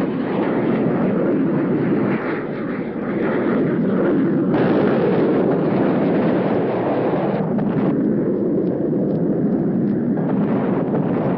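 Jet fighter noise, a steady rushing roar with no clear engine pitch, that shifts in tone at cuts about four and a half, eight and ten seconds in.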